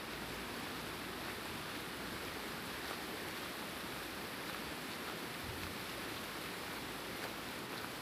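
Steady rushing of a fast white-water mountain river.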